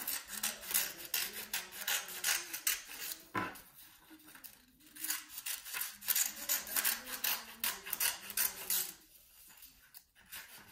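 Scissors cutting through construction paper in long strokes of quick, rasping snips, with a short pause and a single knock a little after three seconds; the cutting stops about nine seconds in.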